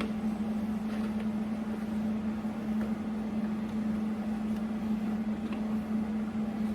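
A steady machine hum with one constant low tone, unchanging throughout.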